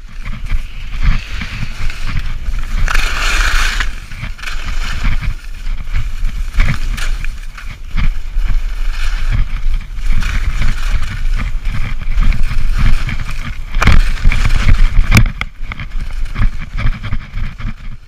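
Skis scraping and hissing over packed, groomed snow while wind rumbles on the action camera's microphone, with a couple of sharp knocks about fourteen and fifteen seconds in.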